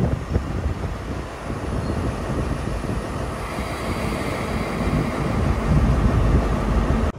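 Class 43 HST diesel power car rumbling as it rolls slowly along the platform and comes nearly to a stop, its engine running. A faint high hiss joins about halfway through.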